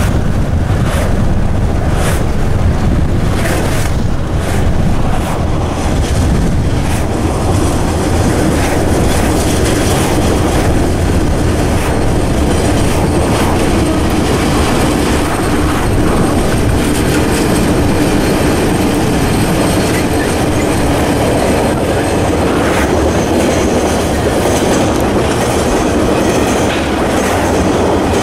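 Wind buffeting the microphone at first, then a diesel-hauled freight train rolling past, its wagon wheels clacking over the rail joints.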